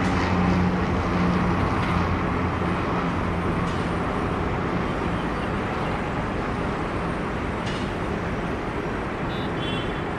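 A propeller airplane's engine drone fading away over the first few seconds, leaving a steady rushing noise that slowly grows quieter.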